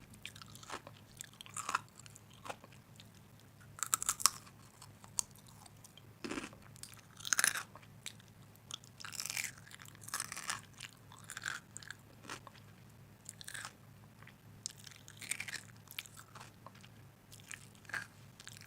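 A person chewing and biting crunchy food close to the microphone, in irregular crunches every second or two.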